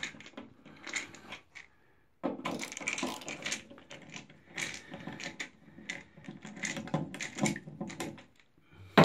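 Phillips screwdriver backing out the screws of a bathtub's chrome trip-lever overflow plate: irregular metallic clicking and scraping of the tip in the screw heads, with a short pause about two seconds in.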